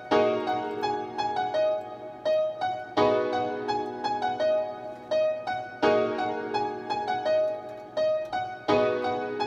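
Software piano sound from a MIDI keyboard and FL Studio: a chord struck about every three seconds, with a repeating figure of short higher notes in between.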